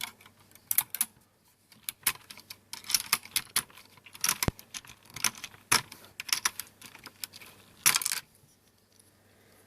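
Wire keycap puller levering several ABS keycaps off Cherry MX Black switches at once: irregular plastic clicks and clacks as the caps pop off and knock together, with one louder clack about eight seconds in.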